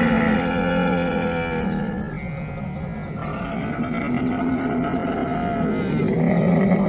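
Camel calling: one long, continuous low-pitched call that dips in the middle and grows louder again near the end.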